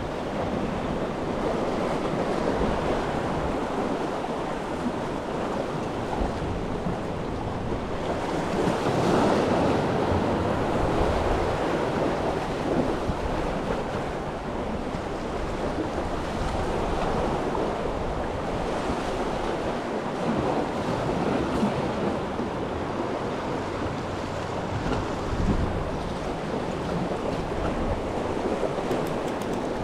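Sea waves washing on the shore, with wind rumbling on the microphone; the surf swells louder about a third of the way in.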